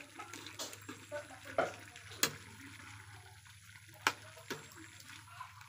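Metal ladle stirring a simmering stew in a wok: liquid sloshing and bubbling, broken by several sharp clinks of the ladle against the pan.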